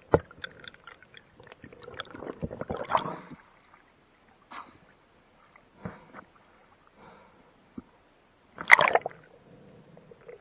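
Water sloshing and gurgling around an action camera's waterproof housing, with irregular clicks and knocks, as a freediver moves between the surface and underwater; a loud splash comes about nine seconds in.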